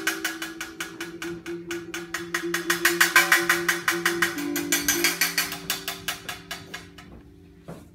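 Hand percussion struck in a fast, even pulse of about six strokes a second, with a bright jingling, clicky edge. It grows louder, then fades away near the end. Underneath runs a steady low drone that shifts pitch about halfway through.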